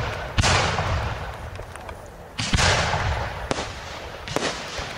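Aerial firework shells bursting overhead: two loud booms about two seconds apart, then two smaller ones, each trailing off in a fading rumble and crackle that lasts a second or more.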